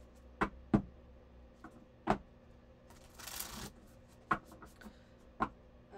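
Tarot cards being shuffled by hand: several sharp card taps and a brief swish of sliding cards about three seconds in.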